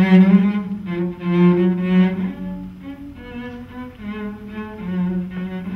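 Bowed cello playing a slow melody of held notes that move step by step from one pitch to the next.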